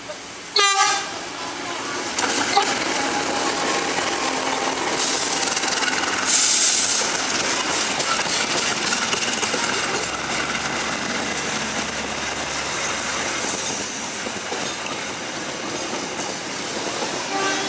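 CC 201 (GE U18C) diesel-electric locomotive sounds a short horn blast about a second in. Its passenger train then runs past with a steady rumble and clatter of wheels on rails.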